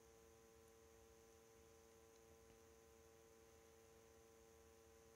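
Near silence with a faint steady electrical buzz of several tones at once: the Bedini SSG coil being pulsed rapidly by its solid-state, microcontroller-driven trigger.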